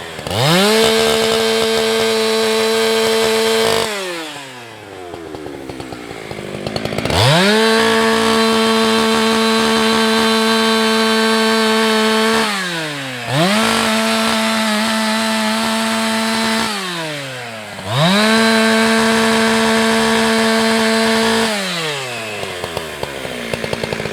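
Husqvarna 365 two-stroke chainsaw run up to full throttle four times, each time held steady for a few seconds before it drops back toward idle. It settles to a lower idle near the end.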